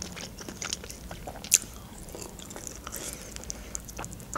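Biting into and chewing a roasted chicken wing eaten by hand: small crisp crunches and wet chewing, with one sharper crackle about a second and a half in.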